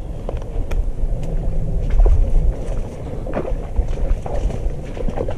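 Wind buffeting the microphone as a heavy low rumble, with dry cattail stalks rustling and crackling in short irregular snaps as they brush past.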